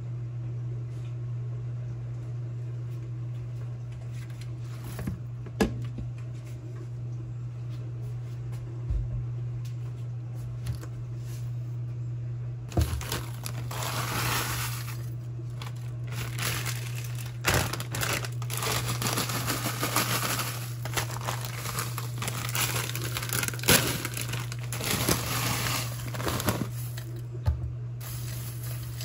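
A plastic bag crinkling as frozen mixed vegetables are shaken out of it into a ceramic slow-cooker crock, starting a little before halfway through, with the frozen pieces clattering in and several sharp knocks. A steady low hum runs underneath.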